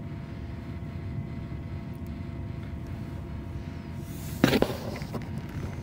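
Steady low background hum, with a brief handling noise about four and a half seconds in as the egg is held to the candling light.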